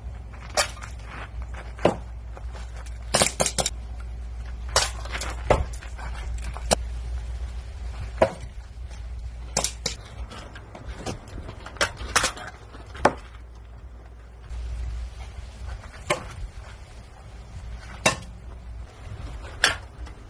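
Sharp metallic clicks and clacks of a knife and an airsoft 1911 pistol being handled, irregularly spaced and some in quick clusters, over a low steady rumble.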